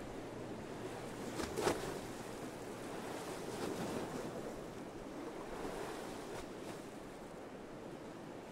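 Steady wash of sea waves, with a short louder splash about a second and a half in.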